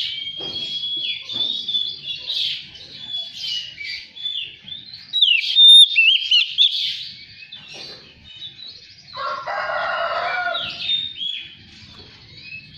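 Oriental magpie-robin singing a fast, varied song of loud whistles, trills and sliding notes, with a lower, harsher call lasting under two seconds about nine seconds in.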